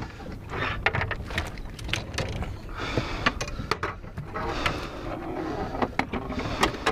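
Irregular clicks, knocks and rustling scrapes of a large jack crevalle being handled in a landing net, over a steady low rumble.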